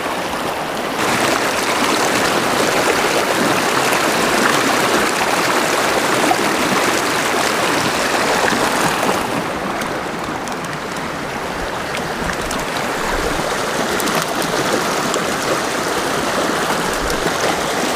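Mountain stream water running steadily, a loud rushing that grows louder about a second in.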